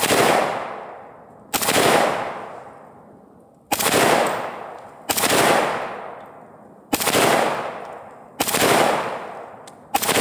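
AK-47 rifle firing 7.62x39 rounds in slow aimed single shots, about seven in ten seconds at uneven gaps of one and a half to two seconds. Each report trails off over a second or more.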